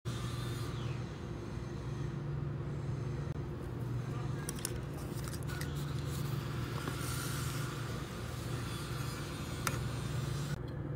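A steady low engine hum running at a constant speed, with a few faint clicks over it.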